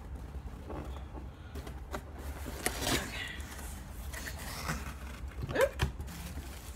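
Cardboard subscription box being opened by hand: flaps lifted and folded back, with scattered rustles, scrapes and taps, a few louder ones about three seconds in and near the end.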